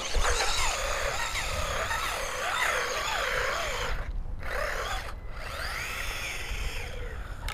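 WLToys A979 RC truck's electric motor and drivetrain whining, the pitch rising and falling as the throttle is worked. The whine cuts out briefly about four seconds in and dips again a second later.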